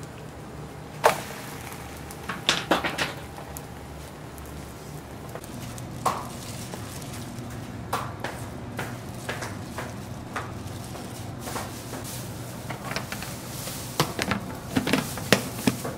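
Kitchen work sounds: scattered clicks and clatters of utensils and plastic containers over a steady low hum, growing busier near the end.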